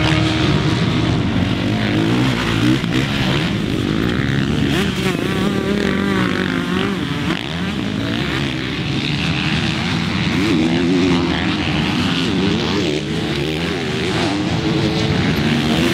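Motocross bike engines revving and falling off as the riders brake and accelerate through dirt corners, more than one bike at a time, the pitch rising and dropping again and again.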